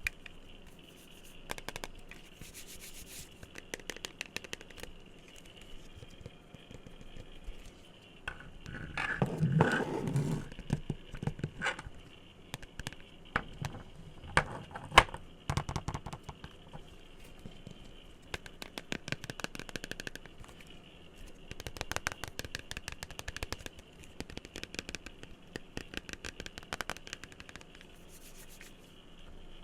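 Fingers and nails tapping and scratching on assorted objects in quick runs of light taps. There is a denser, heavier stretch of scratching about a third of the way in and one sharp, louder tap about halfway through.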